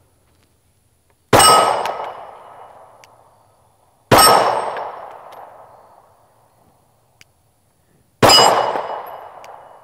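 Three slow, deliberate shots from a 9mm Glock 19 Gen 5 pistol, about three and four seconds apart. Each crack is followed by a long, fading metallic ring as the bullet hits a steel target.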